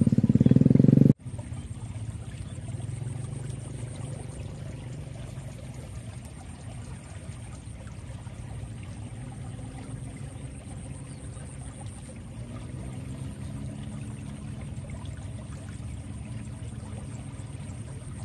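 Muddy irrigation-ditch water running and trickling over rocks, a steady rushing. A louder burst in the first second breaks off sharply, after which the flow carries on evenly.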